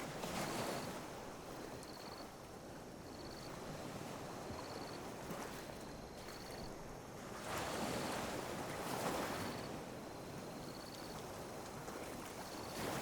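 Small ocean waves lapping and washing up on a beach, swelling and fading in washes, with a bigger surge in the second half. A faint high-pitched chirp repeats about once a second.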